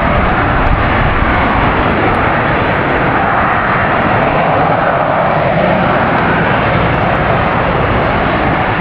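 Loud, steady engine noise of an aircraft in flight.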